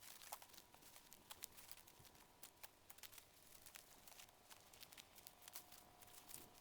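Near silence: faint scattered clicks, with a faint steady thin tone in the background.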